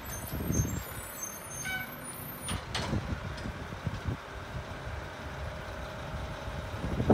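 Mack rear-loader garbage truck's diesel engine idling, with a sharp clank about three seconds in and a few low thumps.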